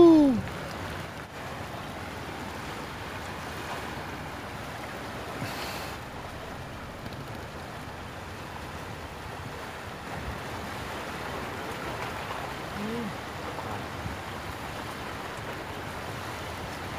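Steady rush of wind and choppy sea water, an even hiss without any distinct events.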